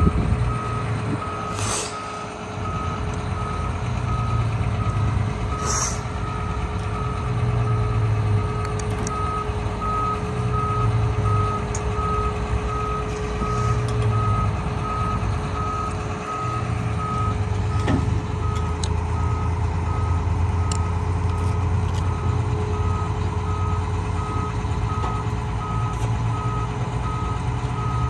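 Tracked rock crusher's diesel engine running with a deep rumble that swells and dips, under a reversing alarm beeping steadily about once a second, with a steady whine alongside.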